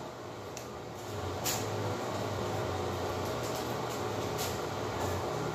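Steady low hum of room ventilation, with a faint tap about a second and a half in and another near the end.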